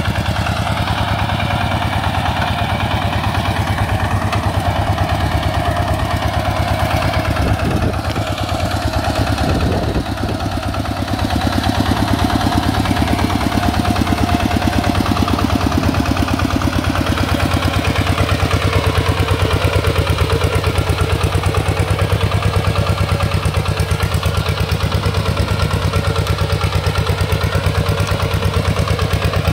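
Single-cylinder diesel engine of an RT 140 hand tractor running steadily with an even, rapid firing beat. The sound dips briefly about eight to eleven seconds in, then runs a little louder after that.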